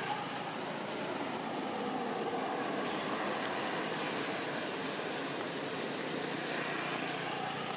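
Steady rushing background noise with no distinct events, most likely traffic on the nearby road.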